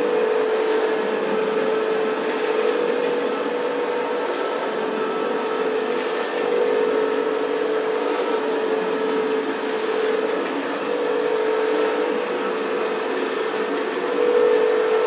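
Motor of a carpet-cleaning machine running steadily, a high hum over a rushing hiss, swelling and easing every few seconds.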